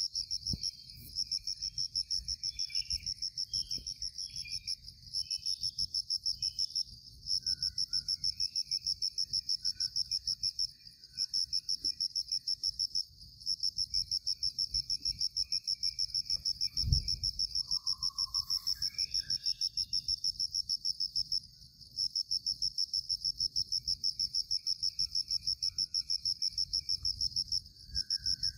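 Insect song: a loud, high, rapidly pulsing trill that breaks off briefly every few seconds and resumes, with faint scattered chirping calls beneath it. A single low thump sounds about two-thirds of the way in.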